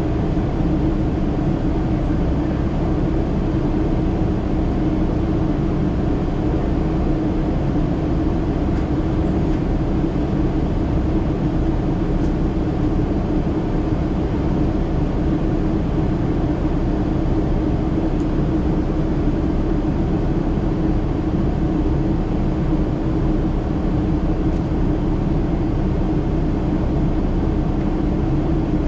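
Cabin noise of a Boeing 777-300ER in its climb after takeoff: its GE90 engines and the rushing air outside make a loud, steady drone with a constant low hum.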